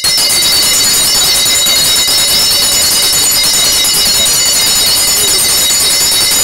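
Korean shaman's brass hand bell shaken rapidly and without pause: a loud, dense jangling ring with many high overtones.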